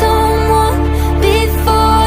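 Background music: a song, with a held melodic line over sustained bass notes.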